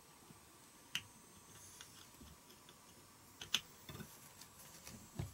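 Small clicks and taps of a small electric motor's metal end bracket and housing being handled and fitted together: a sharp click about a second in, the loudest click about three and a half seconds in, then a few softer knocks.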